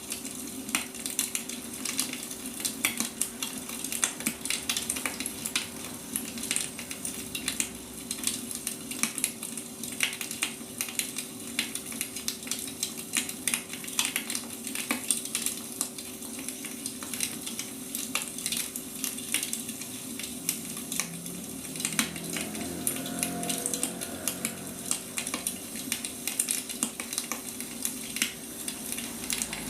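Wood fire burning, with a dense, irregular crackle and snapping of firewood over a steady hiss. A faint steady hum sits underneath.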